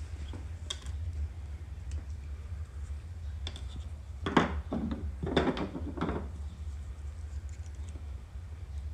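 Small metal rotor parts of an RX-8 rotary engine being handled during disassembly: a few light clicks, then two short scraping clatters about midway, over a steady low hum.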